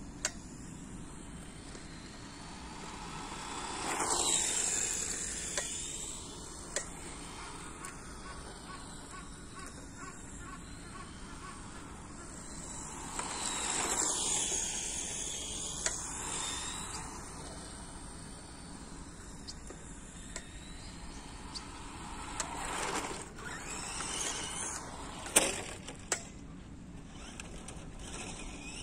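Radio-controlled model rally car with a stock electric motor running on asphalt, its motor whine and tyre hiss swelling and fading as it passes close by three times, about 4, 14 and 23 seconds in. A few sharp clicks from the stick-type transmitter's controls.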